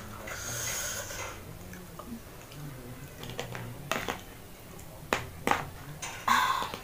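Eating sounds: a metal spoon and fork clicking and scraping against a plastic plate while noodles are stirred and lifted, with a few sharp clicks and two short hissy bursts of breath or slurping.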